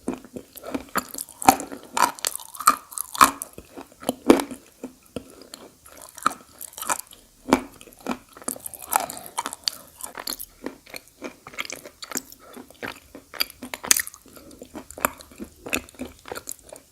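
A person biting and chewing edible clay close to the microphone: a dense, irregular run of sharp crunches and wet crackles.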